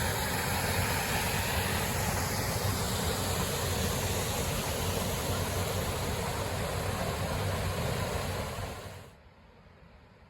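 Steady rushing of a waterfall, which drops away suddenly near the end.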